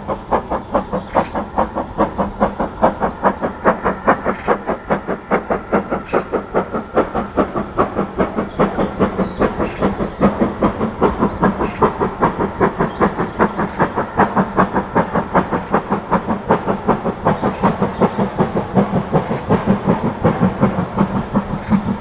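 Caprotti-valve-gear BR Standard Class 5 4-6-0 steam locomotive No. 73129 working hard: loud, even exhaust beats at about four a second.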